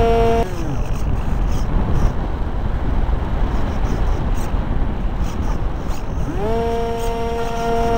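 Electric pusher motor of a Multiplex Easy Star foam model plane, heard from the plane's onboard camera. Its steady whine drops in pitch and cuts out about half a second in, leaving wind rushing over the microphone as the plane glides. About six seconds in the motor spins back up with a rising whine and holds steady.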